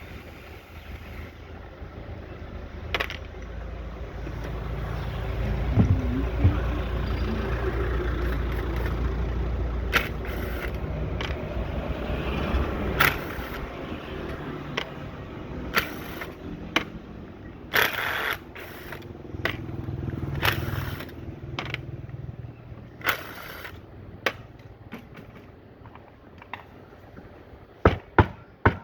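Mechanical work noises during a domestic water pump strip-down: scraping and rattling with scattered sharp knocks and clicks, over a low rumble for several seconds in the first half.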